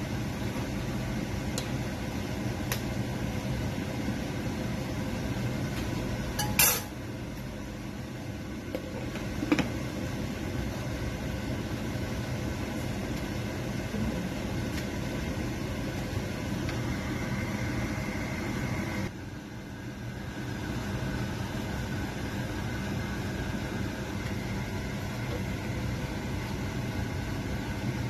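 A pan of soup bubbling on the stove under a steady kitchen hum. About seven seconds in, a short sharp clatter as a glass lid is set on the pan, followed a few seconds later by a lighter clink.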